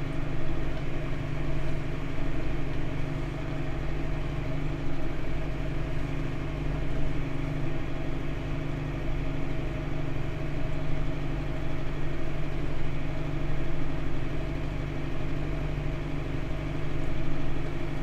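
Tractor diesel engine running at a steady speed, an even drone with no change in revs.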